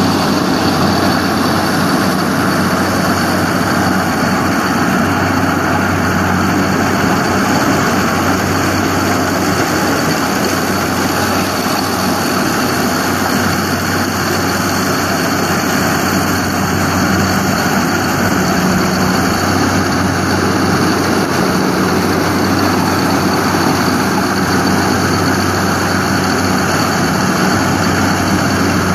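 Engine of a corn-harvesting machine running steadily under load, a constant low hum under a dense mechanical rush.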